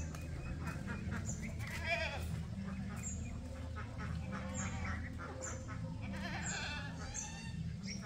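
Goats bleating, with a loud quavering bleat about two seconds in and more wavering bleats near the end.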